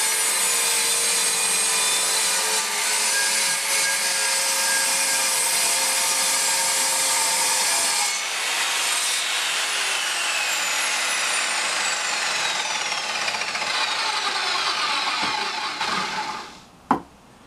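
Evolution Rage 210 SMS sliding mitre saw with its 210 mm multipurpose tungsten-carbide-tipped blade, running and cutting through an oak board for about eight seconds. Its whine then falls steadily in pitch as the blade winds down and fades out. A single sharp click comes near the end.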